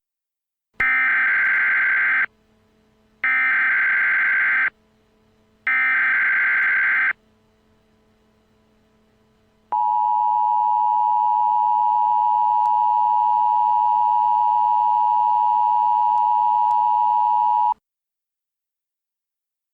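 Emergency Alert System SAME header: three bursts of buzzy digital data tones, each about a second and a half long. After a short pause comes the two-tone EAS attention signal, a steady dual tone held for about eight seconds. Together they mark the start of an emergency alert, here a civil danger warning.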